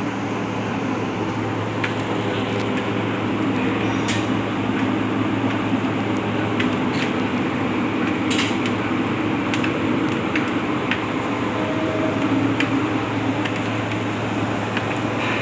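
Lathe running with a steady motor hum and hiss, with scattered sharp ticks and clinks, the clearest about four and eight and a half seconds in.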